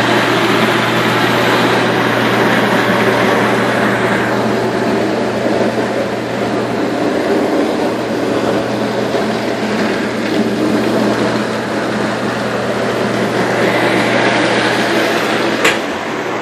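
New dishwasher running loudly: a steady low hum under a dense rushing noise that eases off in the middle and swells again, with a single sharp click near the end.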